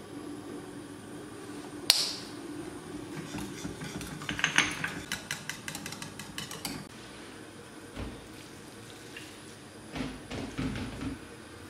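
A wire whisk beating béchamel sauce in a stainless steel saucepan, its wires clicking rapidly against the pan for about three seconds, after a single sharp clink about two seconds in. Near the end, a few soft knocks of a spoon in a glass bowl of spinach.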